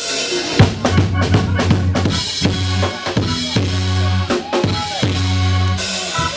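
Live band playing an instrumental intro to a reggae song: a drum kit with bass drum, snare and rimshot hits struck in a busy pattern over a steady low bass line.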